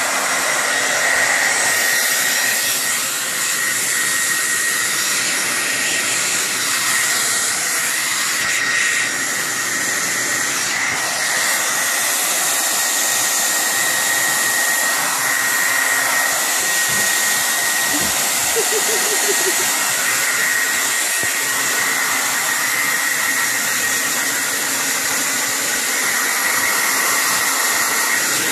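Handheld hair dryer running steadily: a constant rushing blow of air with a thin, steady high whine over it.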